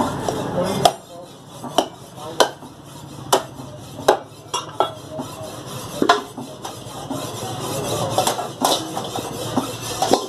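Scattered metallic clinks and knocks, about a dozen at irregular intervals, from a butcher's cleaver and a large steel bowl as meat and bones are handled.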